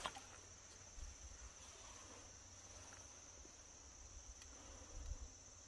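Near silence with a faint, steady, high-pitched insect drone, and a couple of soft knocks about a second in and near the end.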